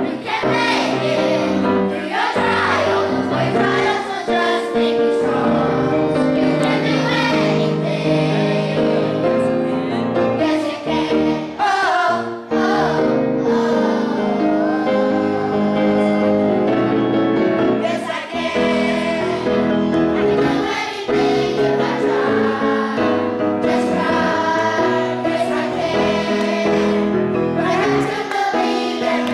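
Elementary-school children's chorus singing a song together, accompanied on piano.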